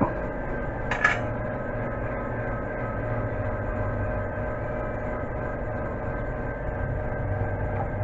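Metal handling noise from a disc brake caliper being manoeuvred back over new brake pads: a short click at the start and a louder metallic clank about a second in, over a steady hum.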